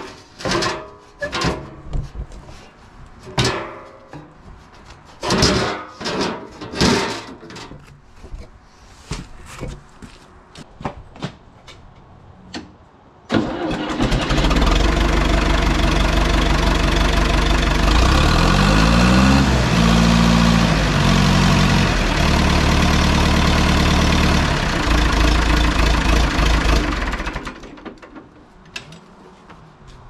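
Scattered metal clanks and knocks, then about 13 seconds in the John Deere 450 bulldozer's engine starts and runs loudly and steadily. Its speed rises and settles once partway through, and it is shut off near the end. Its exhaust has just been repaired and tightened.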